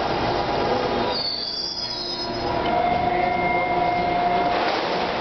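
Hawker Siddeley H5 subway train braking to a stop, running noise throughout, with a high squeal that falls slightly about a second in. A steady tone follows for about two seconds as the train comes to rest.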